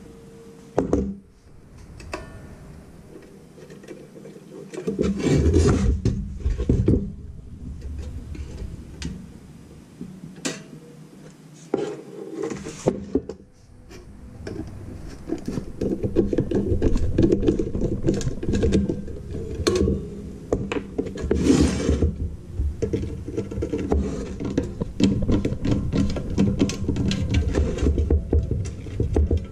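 Hand screwdriver with a Torx bit working screws out of an ice maker's metal cube-cutter grid, with irregular clicking, scraping and clinking as the grid is shifted about on a wooden bench.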